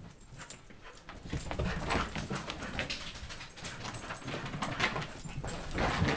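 Scuffling and knocks of a puppy and a cat play-fighting, starting about a second in as a rapid run of short noises.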